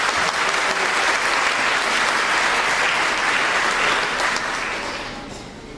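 Audience applauding, a steady crowd of clapping hands that fades away over the last second or so.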